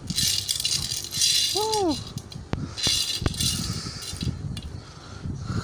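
Dry breakfast cereal pieces rattling and pattering as they slide out of a tilted plastic toy dump truck bed onto a pile, loudest in the first two seconds and fainter later, with two sharp clicks in the middle. A short rising-and-falling vocal hoot is heard once, about a second and a half in.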